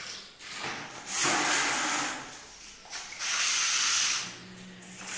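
A broom sweeping a bare cement floor: two long swishing strokes about a second each, with a softer stroke before them.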